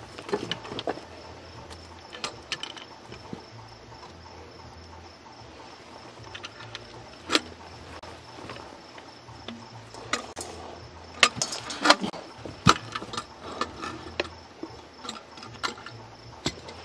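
Scattered sharp clicks and metallic knocks of the crucible and pouring gear being handled after an aluminum pour into sand molds, densest about two-thirds of the way through, over a steady high chirping of crickets.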